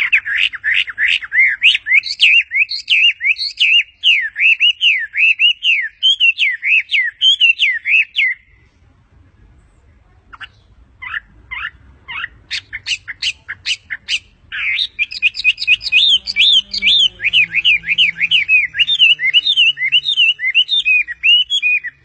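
A Chinese hwamei singing: fast, varied phrases of whistled notes sliding up and down. The song breaks off about eight seconds in, a few sharp separate notes follow, and the rapid song starts again about fifteen seconds in.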